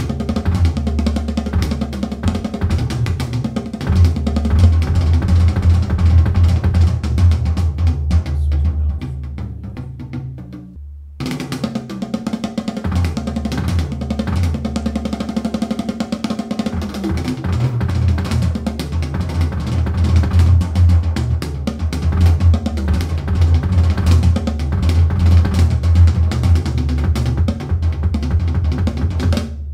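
Drum-kit music with a heavy kick drum and snare, played through Edifier R1855DB bookshelf speakers in a test with and without a subwoofer. The music drops out briefly about eleven seconds in, then resumes.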